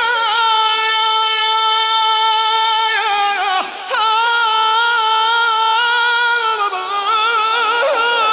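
A man singing a Shia mourning lament, holding long, high notes with a wavering vibrato. The notes come in two long phrases, with a short break for breath about three and a half seconds in.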